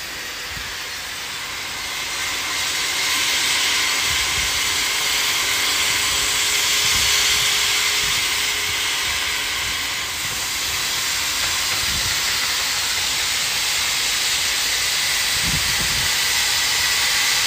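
Oxyfuel cutting torch on a CNC flame cutting machine hissing steadily as it preheats and pierces thick steel plate. The hiss grows louder about two seconds in, and a few low thuds come through it.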